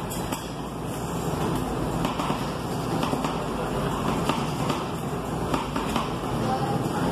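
Metal spatulas chopping and scraping ice cream base on a frozen metal cold plate: irregular quick taps and scrapes against the metal, over a steady background hum and noise.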